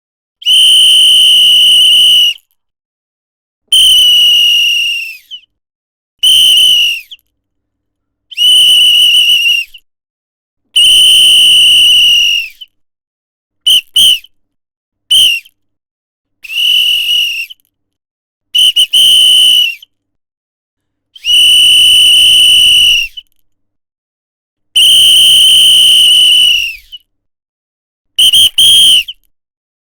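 A whistle blown in about a dozen separate high-pitched blasts: some held for about two seconds, others short, a few in quick double toots. Several blasts warble, and a couple sag in pitch as they end.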